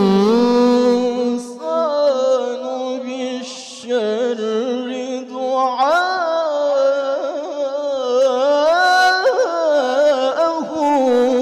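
A man reciting the Quran in melodic tilawah style into a microphone, holding long notes with ornamented turns and glides in pitch. There is a short pause for breath about three and a half seconds in.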